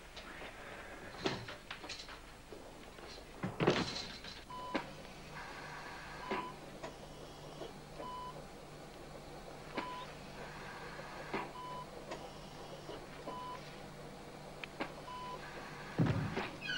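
Operating-theatre patient monitor beeping steadily, a short high beep about every second and a half to two seconds, over a low steady hum. Before the beeping starts there are a few knocks and a short loud rush of noise about four seconds in, and another loud thump near the end.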